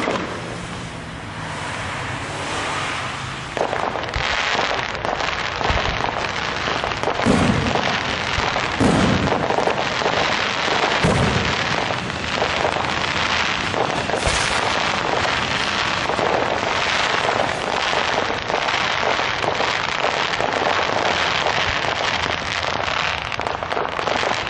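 Fireworks going off: a dense run of crackling and popping from about four seconds in, with deeper booms about seven, nine and eleven seconds in. A low steady hum comes before the crackling starts.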